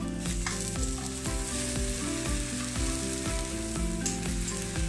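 Eggplant slices sizzling in hot oil in a frying pan as they are turned with metal tongs, with a few light clicks of the tongs against the pan. Background music with a regular beat plays underneath.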